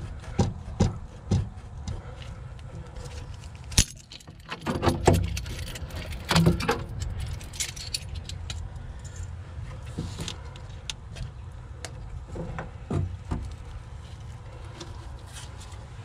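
Scattered metallic clinks, rattles and knocks of hand tools and steering-box parts being handled, with a sharp click about four seconds in.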